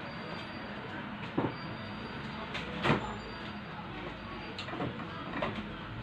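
A few light knocks and clicks of kitchen utensils and containers being handled, the clearest about a second and a half and three seconds in, over a steady low hum.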